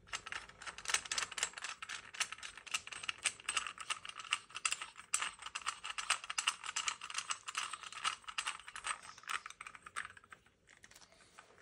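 A long, thin screwdriver turning a screw down inside the buffer tube of a Spuhr G3 stock, giving rapid, irregular metallic clicking and rattling that stops near the end.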